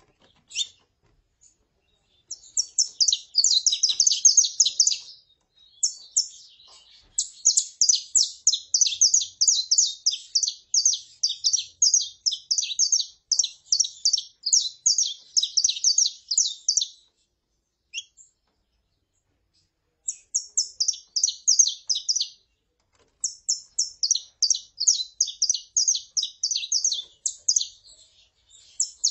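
Saffron finches (canário-da-terra), a female calling and a male singing: fast runs of high, sharp chirps in phrases several seconds long. Short pauses break the phrases, the longest lasting about three seconds just past the middle.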